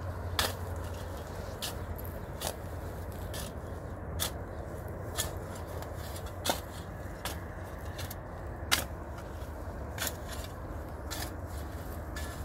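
A long-handled shovel scraping and chopping into dry, stony soil, with short strokes coming unevenly about once a second. One stroke about two-thirds of the way through is the loudest.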